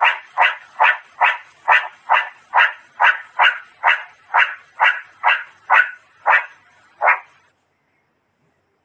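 Meerkat calling: a run of about sixteen short, sharp calls, a little over two a second, stopping about seven seconds in.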